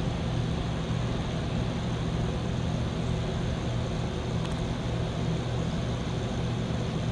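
A steady low engine drone with a constant hum, unchanging throughout.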